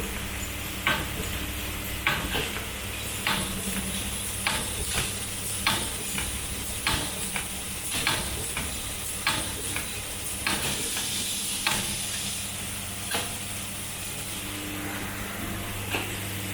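Automatic centrifugal fan impeller assembly machine pressing blades into a fan wheel one at a time: sharp clicks at roughly one to two a second over a steady machine hum and a high hiss. The clicks stop about 13 seconds in.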